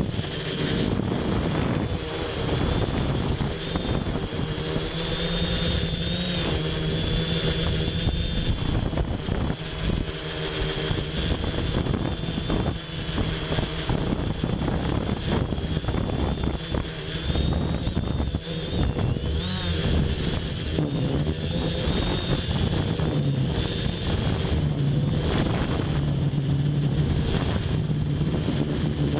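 Electric quadcopter's brushless motors and propellers whirring in flight, heard from a camera on the frame itself. The pitch drifts up and down as the throttle changes, over a fixed high whine.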